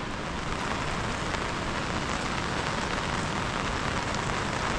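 Heavy rain falling, a steady hiss with a fine patter of drops.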